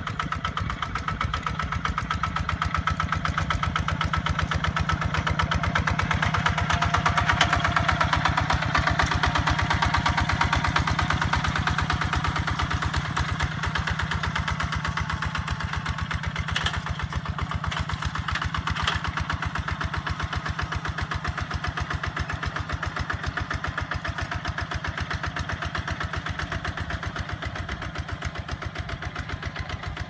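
Two-wheel walking tractor's single-cylinder diesel engine chugging steadily as it pulls a plough through a rice paddy. It grows louder toward about a third of the way in, then slowly fades.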